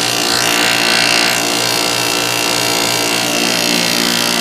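Refrigerant recovery machine running steadily with a motor hum, pulling R22 refrigerant out of an air conditioning system.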